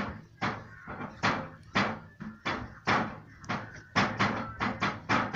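A quick, uneven series of sharp knocks or bangs, about three a second.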